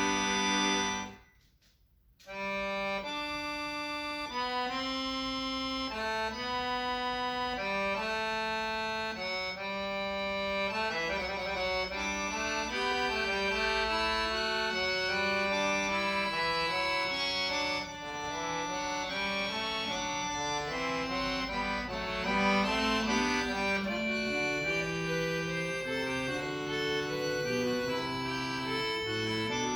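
Accordion playing. Loud chords break off about a second in, and after a brief silence it resumes with a melody of separate held notes that grows into faster, denser passages.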